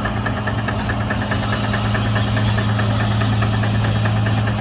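An engine running steadily at an even speed, with a fast, regular ticking over a constant low hum.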